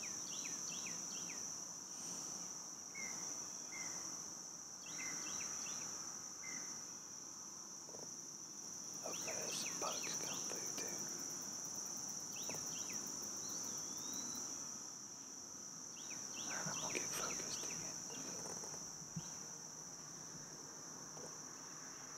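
Steady high-pitched chorus of insects, crickets or katydids, droning without a break. Short clusters of bird chirps come in several times over it.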